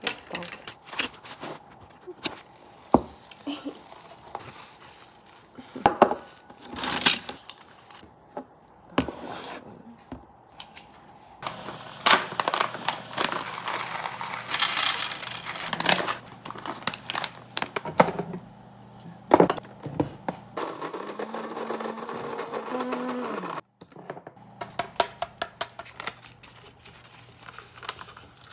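Plastic wrapping crinkling around a bundle of wooden spoons being handled. Then coffee beans pour from a paper bag into a machine with a rattling rush. Near the end a paper coffee filter rustles as it is folded into a ceramic dripper.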